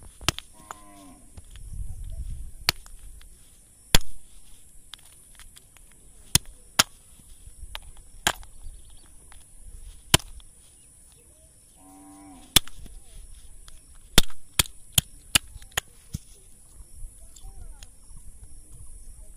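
Sharp cracks and knocks of snail shells being smashed on a rock, a dozen or so at irregular intervals. A short animal call sounds twice, near the start and about twelve seconds in.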